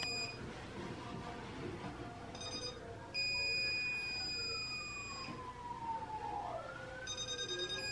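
Electronic stud finder sliding over a wall and sounding its steady high beep as it passes over a stud, once for about two seconds mid-way and briefly at the start and near the end. Behind it a siren wails slowly, its pitch falling and then rising again.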